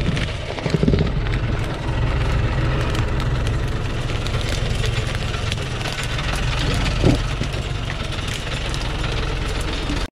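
Thaco Forland truck's diesel engine idling, a steady low hum, cutting off suddenly at the end.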